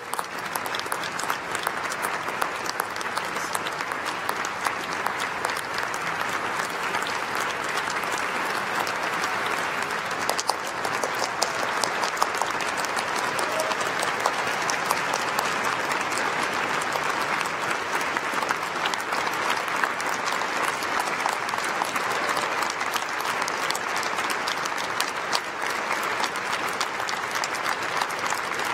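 Audience applauding steadily: many hands clapping together in an even, unbroken wash of claps.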